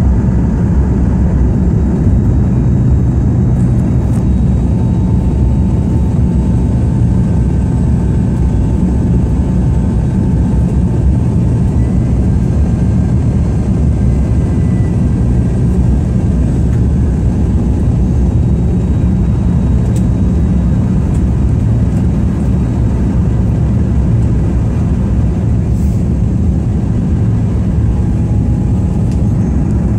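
Steady cabin roar of an Embraer E175 airliner on descent, heard from inside the cabin: airflow noise and its two GE CF34 turbofan engines, with faint whining tones above the rumble.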